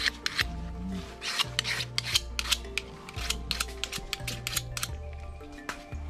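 A knife being sharpened by stroking its blade against a second steel blade: quick metal-on-metal scrapes, about three a second, fading out near the end.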